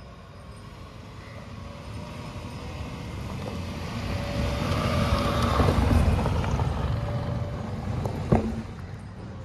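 Tata Punch CNG's 1.2-litre three-cylinder engine pulling the car up a dirt track, with tyres on the dirt. It grows louder as the car passes close by about halfway through, then fades as it climbs away. A single sharp knock comes near the end.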